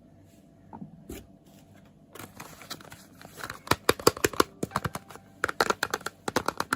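Soap packaging crinkling and crackling as it is handled and unwrapped. It starts after two soft knocks, about two seconds in, and becomes a dense run of sharp, irregular crackles.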